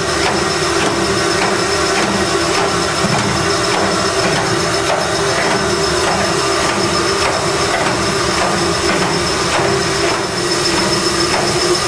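Liberty Ship engine room with its reciprocating steam machinery, the triple-expansion steam engine, running steadily under way: a loud, continuous mechanical din with regular clanks about twice a second and a thin steady high whine.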